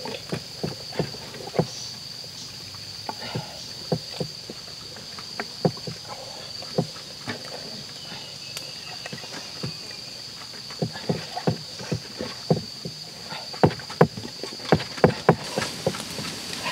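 Turtle shells knocking and scraping against a metal pan as the turtles are handled, in irregular sharp clacks that come thickest near the end. A steady high-pitched tone sounds underneath.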